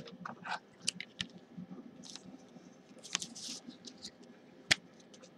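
Trading cards in a clear plastic holder being handled: scattered light clicks and brief rustles, with one sharp click about three-quarters of the way through.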